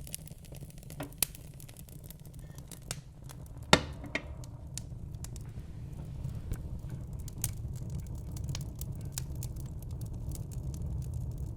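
Wood fire burning in a fireplace: irregular sharp crackles and pops over a low, steady rumble of flame, with one loud pop a little under four seconds in.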